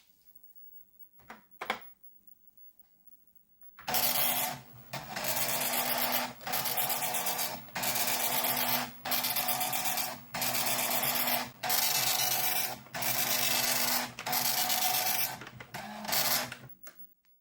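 Philips NMS 1421 7-pin dot matrix printer printing line by line: the print head's buzzing chatter comes in runs of about a second, each broken by a short pause between lines, starting about four seconds in after two faint clicks.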